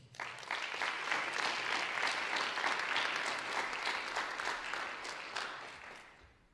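Audience applause in an auditorium, many people clapping for an award recipient, starting just after the name is read and dying away near the end.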